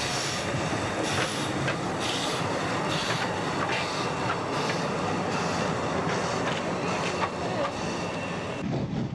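Miniature live-steam locomotive, a replica of an Orenstein & Koppel narrow-gauge engine, running along its small track with its exhaust puffing about once or twice a second, over a steady hiss of steam and the clicking of its wheels on the rails.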